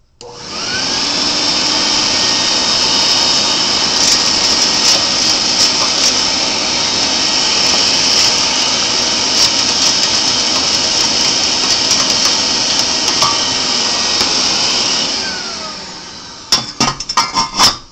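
Vacuum cleaner switched on with a rising whine and running steadily, sucking ash and the rock-like clinker out of a pellet stove's burn pot, with scattered clicks of debris. It winds down near the end, followed by several sharp knocks.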